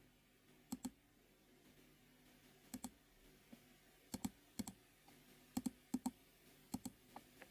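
Sharp clicks on a computer, mostly in quick pairs, about eight of them spread through the stretch, as moves are placed or stepped through on an on-screen Go board.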